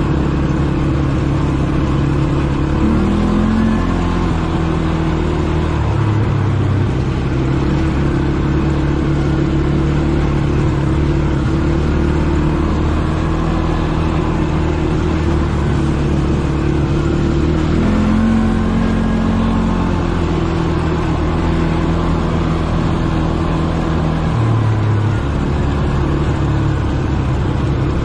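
ATV engine running while riding. Its pitch steps up and down several times as the throttle changes: up about 3 seconds in and again about 18 seconds in, and down around 6 and 25 seconds.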